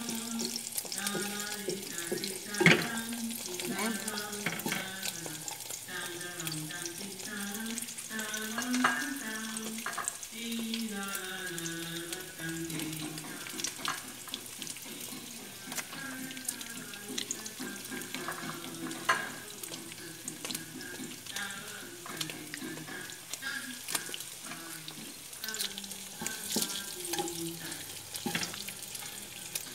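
Eggs frying in oil in a nonstick pan: a steady sizzle, with a few sharp knocks of a wooden spatula against the pan, the loudest about three seconds in. A tune plays faintly underneath.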